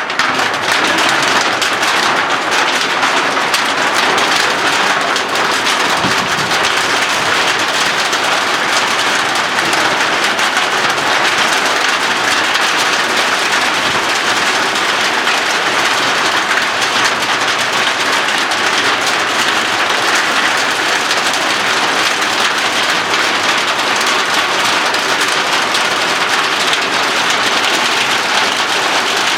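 Hail coming down hard and steadily: a loud, dense patter of many small hailstone impacts.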